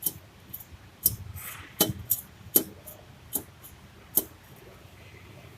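Suspension knocking on a restyled Toyota Land Cruiser Prado 150: about six sharp knocks, roughly one every three-quarters of a second. It sounds like worn stabilizer-bar bushings, though the owner says this knock is deceptive.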